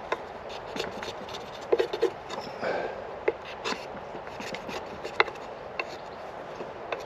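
Homemade knife, made from an old saw blade, cutting and scraping chestnut wood by hand: irregular short scraping strokes and scattered small clicks.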